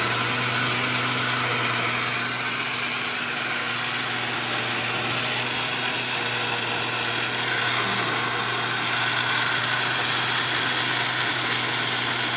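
Electric mixer grinder running steadily, its motor giving an even, unbroken hum.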